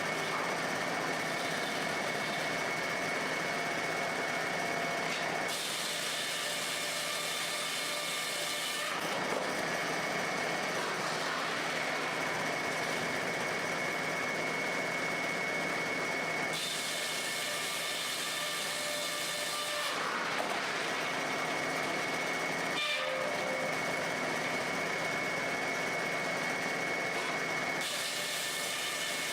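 Sawmill machinery running steadily, with a faint high whine held underneath. The sound changes abruptly several times, about every few seconds.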